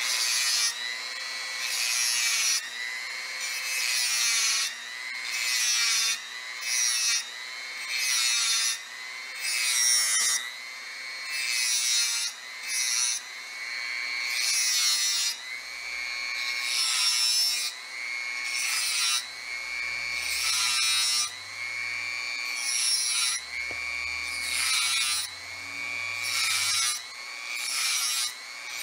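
Handheld rotary tool whining at high speed as its bit grinds a spiral oil groove into a small engine shaft, the worn-off original groove being re-cut. The whine dips and rises, with the grinding in short repeated passes roughly once a second.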